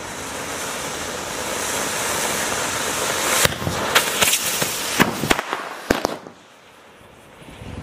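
Anar flower-pot firework hissing as it sprays sparks, growing louder over the first few seconds. Then a quick string of sharp cracks and bangs as the rockets tied to it go off. The hiss dies away near the end.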